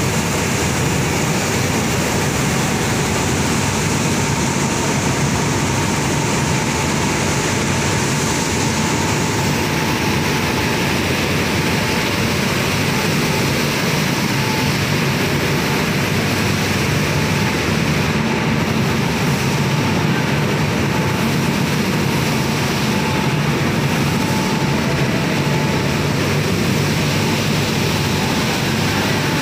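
Wheat starch processing machinery running: a loud, even, continuous mechanical noise with a faint steady whine.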